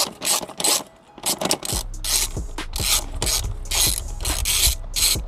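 Hand socket ratchet with an extension backing out the 10 mm bolts that hold the front lip spoiler's bracket to the bumper: quick runs of pawl clicks on each back-swing, with short pauses between strokes and a brief pause about a second in.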